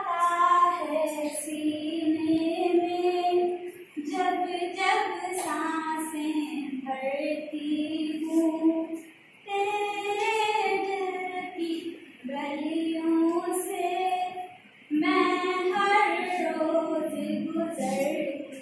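A young woman singing a Hindi film song solo, unaccompanied. She sings in long held phrases with short breath pauses every three to five seconds.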